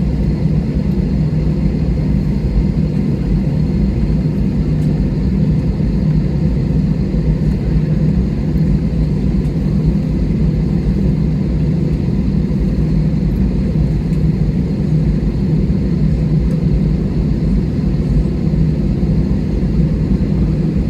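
Steady low rumble of an airliner's cabin with the jet engines running, on the ground before take-off. Faint steady whines sit above the rumble.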